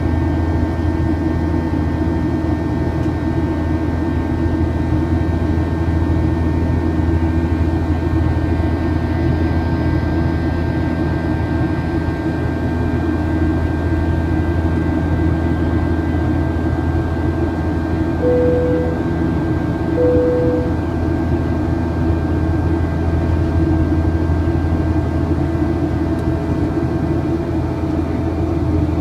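Steady cabin drone of a Boeing 737-800 in flight, heard from inside the cabin: its CFM56 turbofan engines and the airflow make a deep rumble with a few faint steady whining tones. Two short mid-pitched tones sound about two seconds apart just past the middle.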